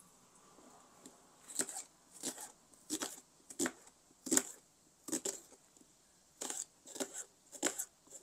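Kitchen knife slicing an onion on a cutting board. About a dozen crisp cuts start about a second and a half in, roughly one every half-second to second, with a short pause partway through.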